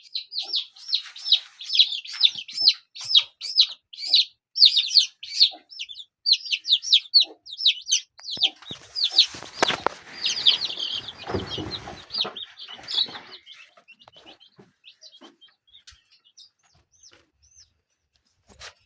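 Young chickens peeping steadily, with many short high cheeps several a second. A rustling clatter comes about nine seconds in, and the peeping thins out after about thirteen seconds.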